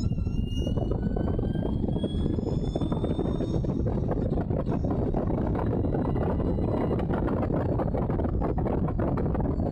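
Allard J2's V8 engine running hard under acceleration, recorded from the open cockpit with heavy wind buffeting on the microphone; the engine note climbs over the first few seconds.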